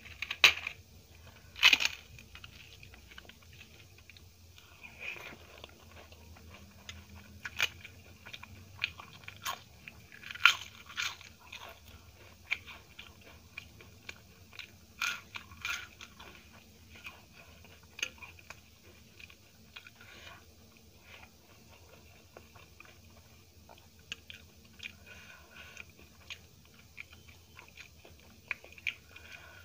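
Close-up eating sounds: crisp papad crunched in sharp bites, between quieter chewing of rice and curry. The loudest crunches come near the start and again about ten seconds in.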